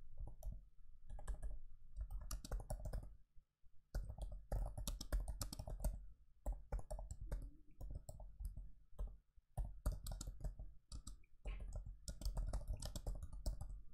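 Typing on a laptop keyboard: quick runs of key clicks broken by short pauses, with a brief lull about three and a half seconds in.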